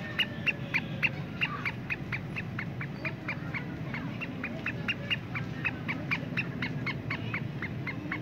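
A caged all-black bird calling in a rapid, steady series of short sharp chirps, about four a second, keeping an even rhythm.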